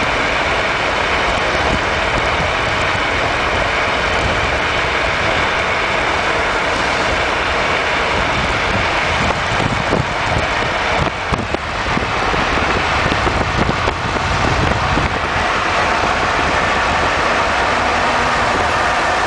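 Steady rush of wind and road noise from a car at motorway speed, heard through an open side window, with the wind buffeting unevenly about halfway through. Toward the end a Volvo truck's engine and tyres join in as it draws alongside.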